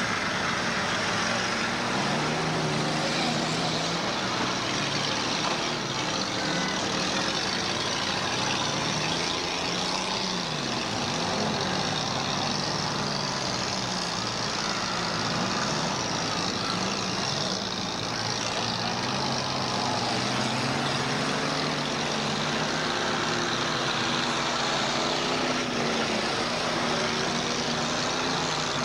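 Car engines running and revving together, their pitch rising and falling, over a steady wash of noise.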